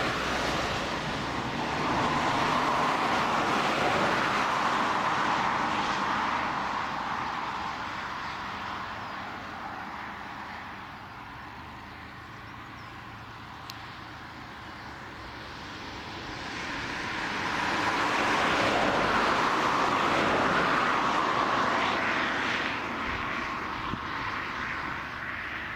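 Distant jet aircraft engines running on the runway, a steady rushing roar that swells, fades and swells again.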